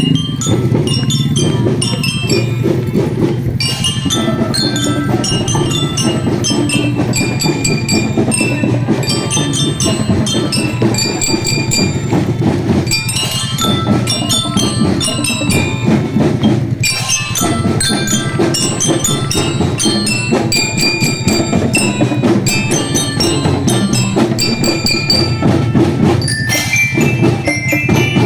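Marching drum band playing: a glockenspiel (bell lyre) melody of quick bell-like notes over drums, with brief breaks between phrases.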